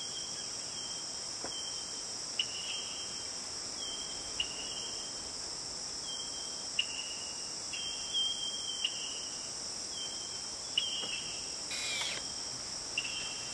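Steady high-pitched insect chorus of crickets, with repeated short high chirps every second or two. A brief harsh burst of noise comes about twelve seconds in.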